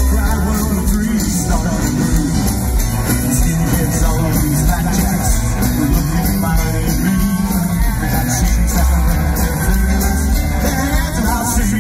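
Live rockabilly band playing: upright double bass, electric guitar, drums and piano, loud and steady throughout.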